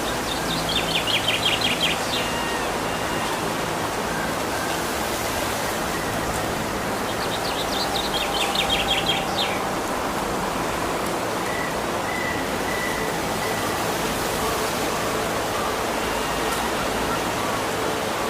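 Steady rush of flowing water, with a songbird singing two short, rapid trilled phrases, one about a second in and one around eight seconds in, and a few faint whistled notes later on.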